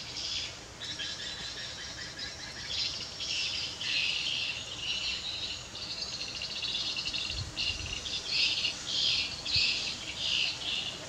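Birds and insects chirping outdoors, a continuous run of high, rapid chirps.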